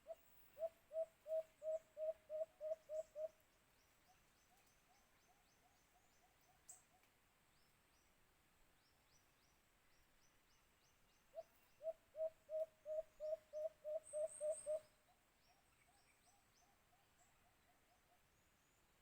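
White-eared brown dove calling: two series of about ten low hooting notes, about three a second, one at the start and one about 11 s in. Each series is followed by a fainter, slightly higher-pitched run of notes, with faint high chirping from small birds or insects behind.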